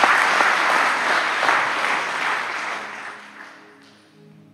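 Church congregation applauding; the clapping dies away over the first four seconds. Faint music tones are left near the end.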